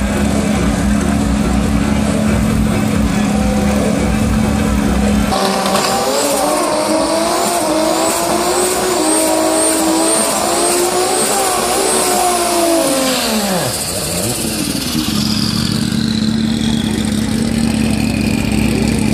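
Drag-car engines doing a burnout on the start line. A steady engine drone gives way, about five seconds in, to hard revving with the tyres spinning and a loud rush of tyre noise. The pitch wavers up and down for several seconds, then drops away near the end and settles back to the steady drone.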